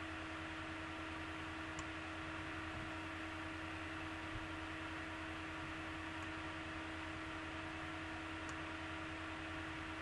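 Room tone: a steady hiss with a constant low hum and no other events.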